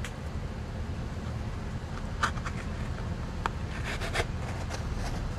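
Steady low rumble, with a few light clicks and taps from hands handling a carton of frozen vegetable broth, about two seconds in and again a little later.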